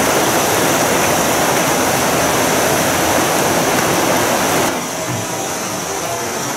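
Whitewater rapids rushing steadily, a loud even roar of churning water; about three-quarters of the way through it drops slightly in level and thins.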